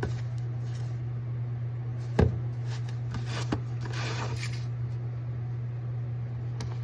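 Hands handling eyeglasses packaging and case: a sharp click about two seconds in, then a run of light clicks and rustling, and another click near the end, over a steady low hum.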